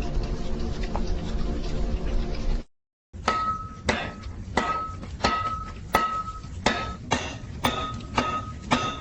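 Hammer striking hot steel on an anvil at a steady pace, about one and a half blows a second, each blow leaving a bright metallic ring. Before it, after a short break, a steady low rumble.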